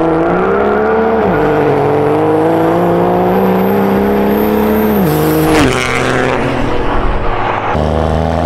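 Built inline-six turbo-diesel of a third-generation Dodge Ram Cummins held at high revs during a burnout, with a high whine riding above it. About five seconds in the revs drop sharply, then climb again near the end.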